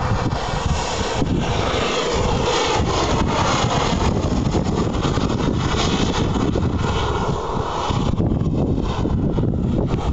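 Large radio-controlled model of a Mi-24 Hind helicopter flying past, its rotor and engine noise running steadily, mixed with wind buffeting on the microphone.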